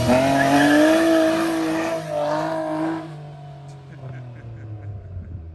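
Car engine revving hard, its note climbing and then held high for about three seconds before it drops away as the throttle is released.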